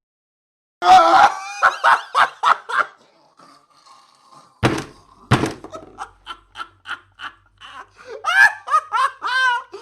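A string of short comic laughter sound effects, one after another, with two sharp thuds about halfway through.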